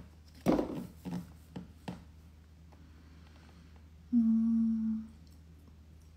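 A young woman hums one steady, level note for about a second, a thinking 'hmm' with her lips closed. Before it come a few short soft rustles and knocks in the first two seconds.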